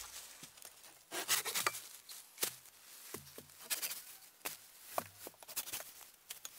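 Footsteps and handling of sticks in leaf litter on the forest floor: a string of irregular rustles and sharp snaps.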